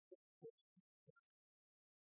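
Near silence, with a few faint short blips in the first second or so.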